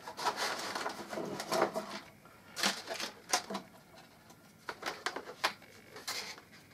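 Clear plastic packaging sleeve and tray being handled by hand: irregular crinkles and sharp clicks of stiff plastic.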